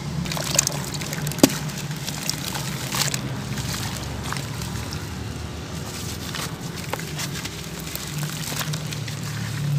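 Hands sloshing through water and crumbling soaked sand-cement chunks, with wet crackles, splashes and scattered small clicks as pieces break apart; one sharp click about one and a half seconds in.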